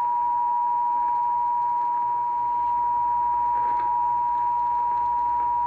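Emergency Alert System two-tone attention signal: two steady high tones sounding together at a constant level, then cutting off suddenly near the end. It signals that an emergency alert broadcast is about to follow.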